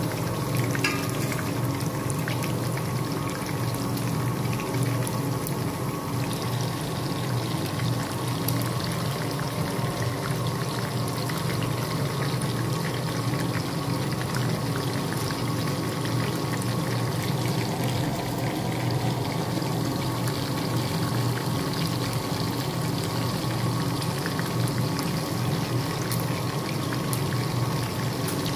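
Chicken wings deep-frying in hot oil in a cast-iron pan: a steady sizzle with fine, continuous crackling, over a steady low hum.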